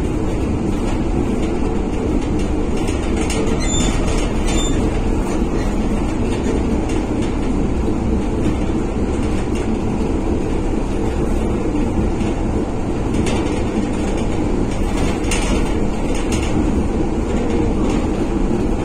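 Cabin noise of a 1963 PaFaWag EN57 electric multiple unit under way: a steady, loud running rumble. About four seconds in there are two short high squeaks, and later a few brief clacks.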